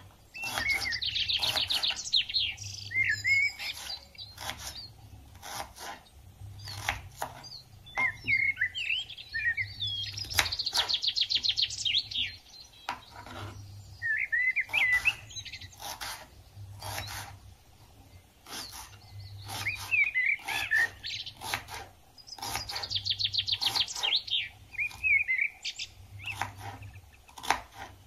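A songbird singing a repeated phrase, a fast high trill followed by short chirps, which comes back several times. Scattered sharp knocks and clicks sound throughout.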